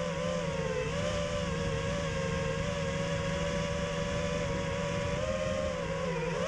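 FPV quadcopter's electric motors and propellers whining steadily at cruising throttle, the pitch dipping briefly near the end.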